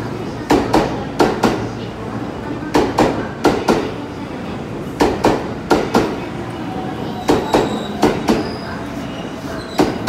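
JR West 321 series electric train pulling into the platform. Its wheels give a double clack over a rail joint as each pair of bogies passes, the clacks spaced slightly wider as the train slows, over a steady running rumble.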